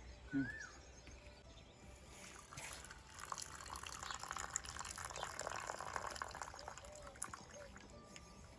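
Liquid streaming and splashing into a container for a few seconds, starting about two and a half seconds in. A short rising-and-falling chirp sounds near the start.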